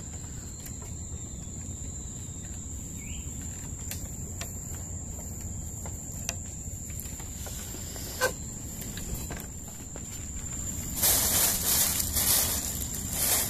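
An insect's steady high-pitched drone over a low outdoor rumble, with a few faint clicks and a louder hiss of noise about eleven seconds in.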